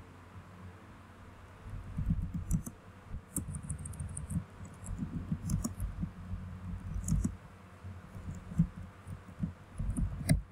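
Typing on a computer keyboard: irregular keystroke clicks in short runs with brief pauses, starting about two seconds in.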